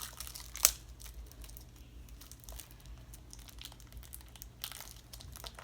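Plastic card packaging crinkling and rustling in the hands as a stubborn pack is worked at, with a sharp snap about half a second in.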